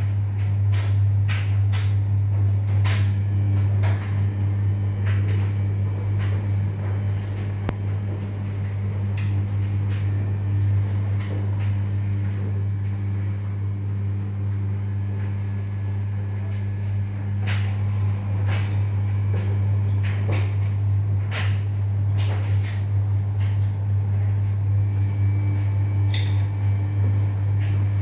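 A steady low hum, the loudest sound throughout, with scattered light clicks and taps over it.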